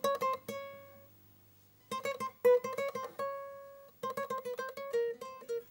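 Acoustic guitar picking a single-note tango melody, one note at a time, in three short phrases with brief pauses between them.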